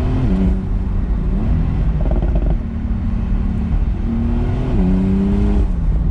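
Porsche 911 Carrera 4S (991.2) 3.0-litre twin-turbo flat-six, breathing through its flap exhaust system, running under way over a steady low rumble. The engine note climbs and drops several times, falling sharply about a third of a second in and again near the end.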